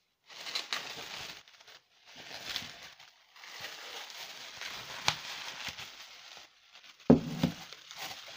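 Plastic bubble wrap being unwrapped from a mug by hand, crinkling and crackling in stretches with a few sharp snaps. A louder knock comes near the end.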